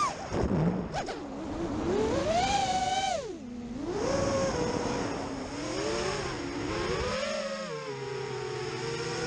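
FPV racing quadcopter's brushless motors whining, the pitch swooping up and down with each throttle change, then settling to a steady lower whine about seven and a half seconds in.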